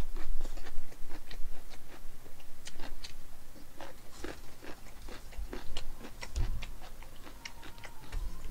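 A man chewing a mouthful of grilled bulgogi close to the microphone: irregular wet mouth clicks and smacks, with a few soft low thumps.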